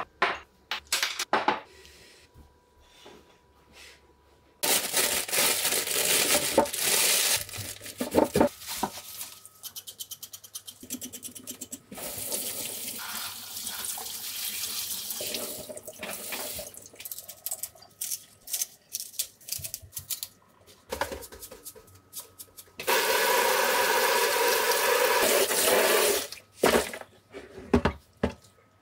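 Kitchen tap running into a stainless steel sink as bunches of young radish (yeolmu) greens are rinsed under the stream, the splashing coming and going as the greens are moved in and out of the water. A few light clinks of tableware open it.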